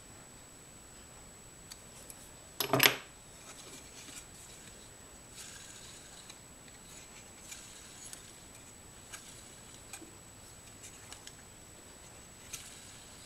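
Handmade wooden model rotary air engine handled and spun by hand on its shaft: one short, loud clatter of wooden and metal parts about three seconds in, then scattered faint clicks and light rustles as it turns and is stopped.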